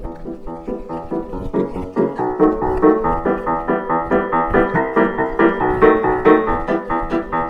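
Background music on a piano-like keyboard: chords and notes struck in a steady, quick rhythm.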